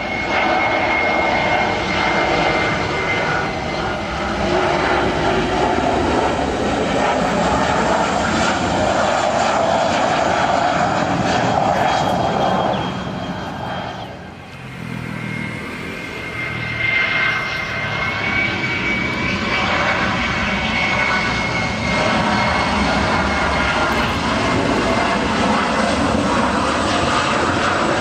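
Jet engines of a Boeing 737-500 airliner on landing approach overhead: a steady rushing noise with a high fan whine that wavers slightly in pitch. The sound dips briefly about halfway through and then builds again as the jet comes closer.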